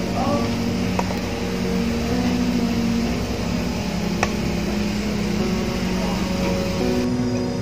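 Soft background music of slow sustained chords that shift to a new pitch every second or two, with a faint click about a second in and a sharper one about four seconds in.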